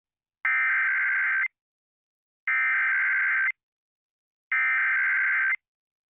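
Emergency Alert System SAME header: three bursts of buzzing digital data tones, each about a second long and about a second apart. The header marks the start of an EAS activation, here for a tornado warning.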